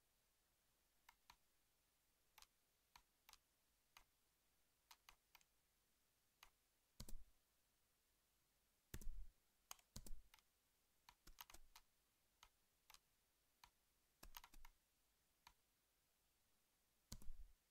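Faint, scattered clicks of a computer mouse and keyboard over near silence, with a handful of louder taps.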